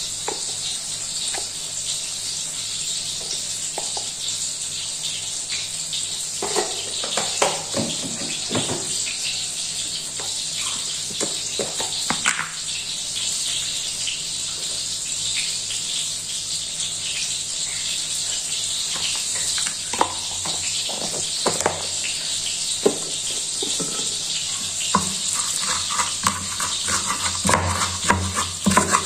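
Scattered light taps and clatter over a steady high hiss, then, in the last few seconds, a stone pestle knocking and grinding in a clay cobek as it starts to crush chilies and fried shallots.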